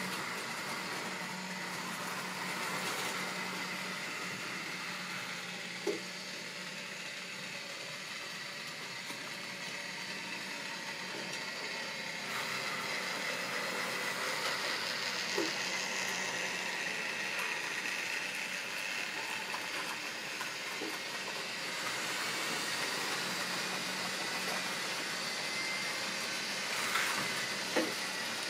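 OO gauge model railway train, a model diesel locomotive hauling tank wagons, running steadily along the track with a continuous motor whine and wheel rumble. A few short sharp clicks stand out.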